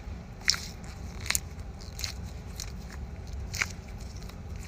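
Squishy toys being handled: about five short, sharp crackles and crunches a second or so apart.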